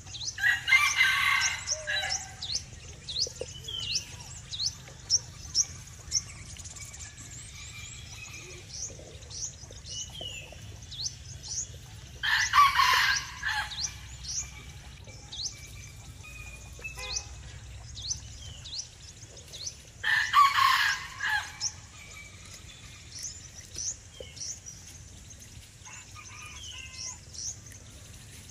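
A rooster crowing three times, each crow lasting about a second and a half, over constant high, quick chirping of small birds.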